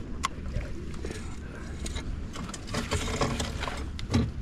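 Scattered clicks and rattles of fishing gear being handled aboard an aluminium jon boat, busiest around the middle, with a sharp knock just after four seconds in, over a low steady wind rumble.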